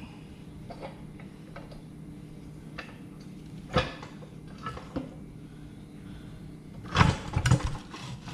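Knocks and clanks of hand tools and a tire-changing bar working a tire on a wheel rim: scattered light taps, one sharp knock a little under four seconds in, and a louder cluster of thumps about seven seconds in.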